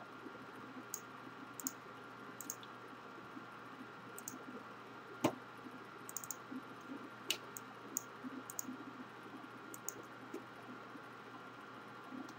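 Scattered faint clicks from operating a computer while working in the software, with one sharper click about five seconds in, over a steady faint high whine.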